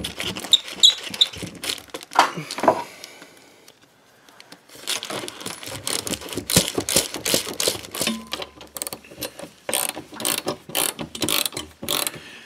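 A few handling clicks and scrapes, then a short pause. After the pause, a ratchet wrench clicks in quick repeated strokes as it drives a lag bolt and washer through a metal mounting bracket into a wood stud.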